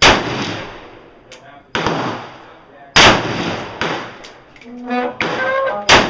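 VZ-58 rifle in 7.62x39 fired in deliberate single shots: three loud reports about three seconds apart, each trailing off in echo. Somewhat quieter gunshots fall in between.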